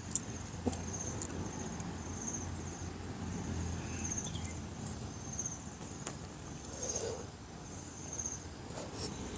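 An insect chirping: short, high, buzzy chirps repeated roughly once a second, over a steady low wind rumble, with a few soft clicks scattered through.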